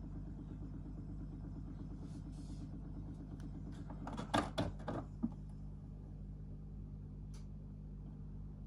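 Philips portable record player running with a steady low hum, the record spinning before the needle is set down. About four seconds in there is a quick cluster of clicks and knocks as the control lever beside the tonearm is worked by hand, then a single faint click near the end.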